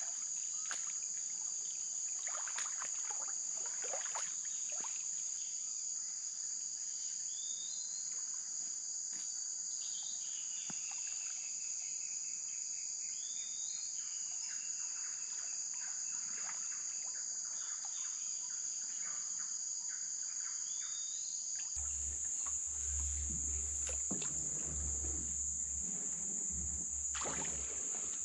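Steady high-pitched drone of insects in flooded forest. Short rising calls repeat every few seconds over it, fitting a bird. About three-quarters of the way through, a low rumble and knocks of movement join in.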